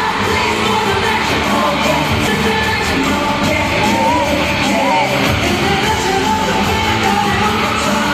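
Live K-pop concert heard from within the audience: loud amplified music with a singer on a microphone, and fans yelling and whooping along.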